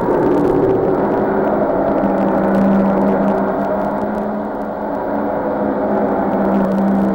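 Sustained gong wash on the film's soundtrack: a dense, shimmering metallic drone, with a steady low tone that grows stronger about two seconds in.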